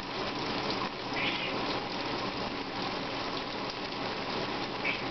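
Running shower spray splashing steadily onto a wet cat and the tub floor, with a faint short high squeak about a second in and another near the end.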